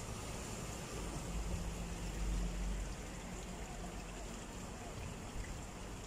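Steady outdoor background noise: an even rushing hiss with a low rumble underneath, which swells from about one second in and eases off near three seconds.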